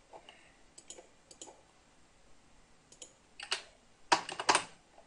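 Computer mouse clicking: a few light single clicks, then a louder quick run of clicks near the end.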